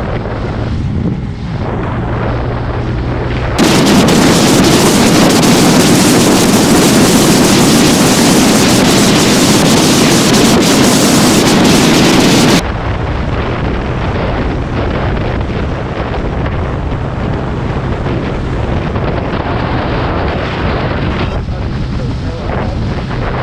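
Wind rushing over the microphone of a moving motor scooter, with the scooter's engine humming low and steady underneath. From about four seconds in to about thirteen seconds the wind noise turns much louder and harsher, then drops back abruptly.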